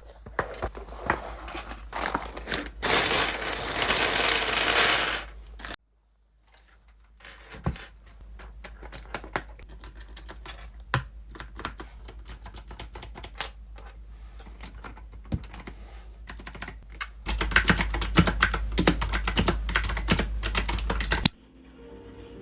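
Fast typing on a computer keyboard: a dense run of key clicks in three stretches, louder at first, quieter through the middle, louder again near the end, then stopping abruptly shortly before the end.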